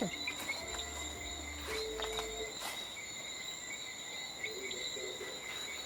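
Night insect chorus: crickets trilling steadily at several high pitches at once, with a few faint short low calls in between.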